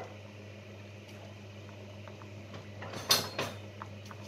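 Wooden spatula stirring chopped onion, tomato and chilli in a non-stick frying pan, with a short burst of scraping and knocking against the pan about three seconds in, over a steady low hum.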